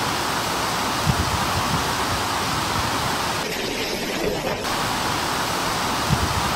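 Typhoon wind and driving rain: a steady rush of noise, with low gusts buffeting the microphone about a second in and again near the end.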